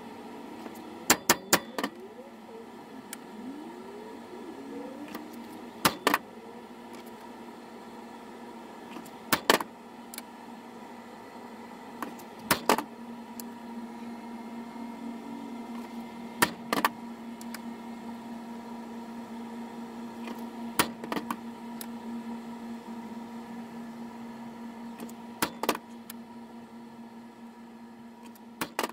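Sharp metal clicks and taps in small clusters of two or three every few seconds, as a steel tool knocks against a steel coin die, over a steady hum.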